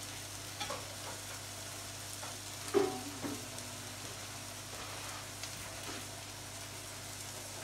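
Food sizzling steadily in a frying pan on a gas burner, over a low steady hum, with a few light knocks, the loudest about three seconds in.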